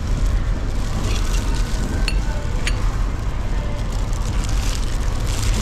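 Steady background noise with a low rumble, with the rustle of clear plastic disposable gloves as hands grip and lift a stewed pork bone. Two sharp clicks come a little after two seconds in.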